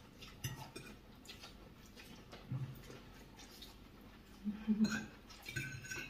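Quiet clinks and scrapes of forks and chopsticks on dinner plates during a meal, with a brief murmured voice sound near the end.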